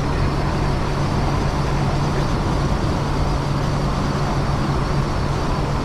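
Steady road and engine noise inside a moving car, with a constant low hum under it.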